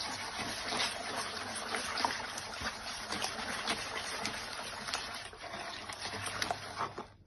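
Eggs and sugar being beaten by hand in a wooden bowl: a steady wet sloshing and slapping of the runny mixture, with many small irregular splats. The mixture is being worked until pale, with the sugar dissolving into the eggs.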